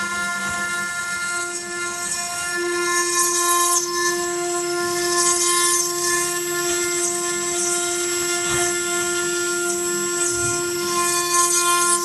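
CNC router spindle running at a steady high whine while carving stone, with a hissing, grinding cutting noise on top. The whine strengthens a couple of seconds in.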